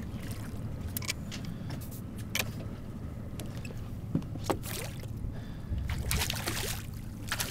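A hooked bluefish splashing and thrashing at the water's surface near the end, over a steady low rumble with a few sharp knocks.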